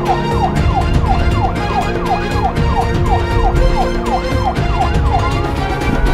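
Police siren in a fast yelp of about four falling sweeps a second, changing about five seconds in to a slow rising wail, over background music.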